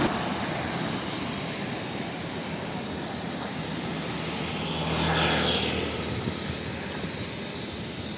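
Steady rushing hiss of a compressed-air paint spray gun spraying the final coat onto a steel pressure vessel, swelling briefly about five seconds in.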